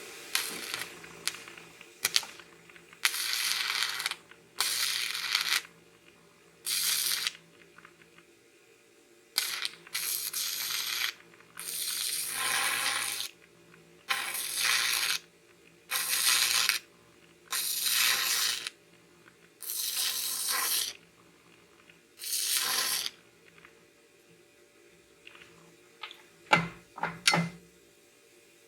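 Stick-welding arc from a YesWelder ARC-205DS crackling in about a dozen short bursts, each lasting about a second before the arc breaks off. The arc keeps cutting out because the 1/16 rod burns back without being fed down toward the work. A few sharp knocks come near the end.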